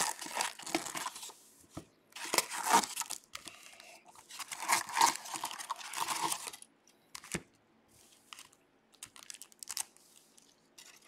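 Foil-wrapped trading card packs crinkling and rustling as they are pulled out of a cardboard hobby box and stacked, in three bursts over the first six or so seconds, followed by a few light taps and faint rustles.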